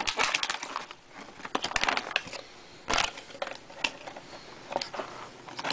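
Small folded paper catalog and plastic packaging being handled, with irregular crinkling and clicking and a sharper crackle about three seconds in.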